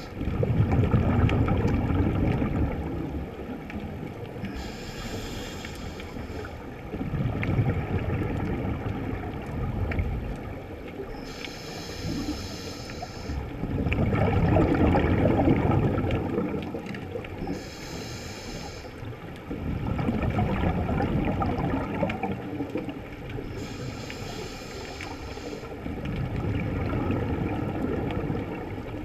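Scuba diver breathing through a regulator underwater. Each inhale is a short hiss, and each exhale is a longer, louder rush of gurgling bubbles, one full breath about every six seconds.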